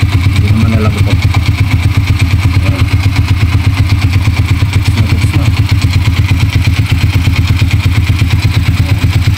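Motorstar Viperman 150's air-cooled single-cylinder four-stroke engine idling steadily with an even, fast pulse. It has just had a top overhaul with a new piston kit.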